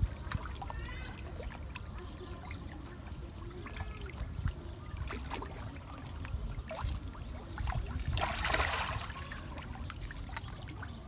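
Water splashing and trickling as a dense crowd of fish churns at the surface of a pond, with many small plops and slaps and one longer, louder splash about eight seconds in.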